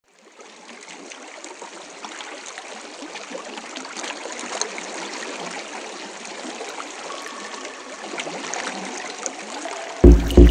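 A steady rushing, trickling noise like running water, with small scattered clicks, fades in and slowly grows louder. Music with a heavy, pulsing bass beat starts abruptly near the end.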